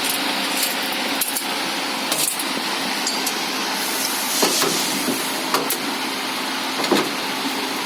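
Scattered clicks and knocks as the machine's cover is fitted back in place, over a steady hiss and low hum.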